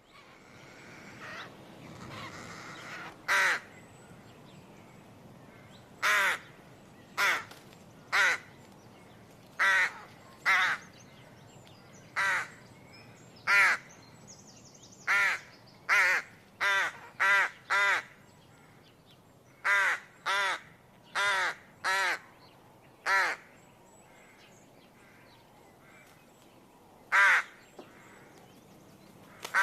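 A bird calling repeatedly: about twenty short, loud calls in irregular runs, some about a second apart, with a long gap before a last pair near the end, over faint outdoor background.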